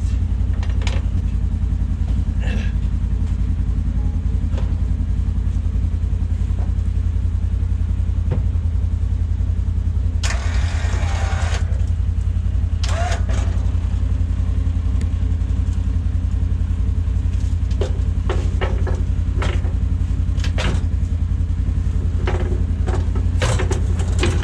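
An engine idling steadily, with metal clanks and knocks as the plow's mount is slid onto the anchor pins and hooked up. About ten seconds in there is a brief scraping rush.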